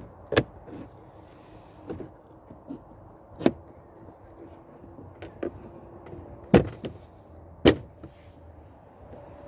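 Plastic rear speaker trim panel of a 2001 Mitsubishi Eclipse Spyder being pressed and knocked into place as its tabs seat: four sharp knocks at uneven intervals among lighter clicks and rubbing.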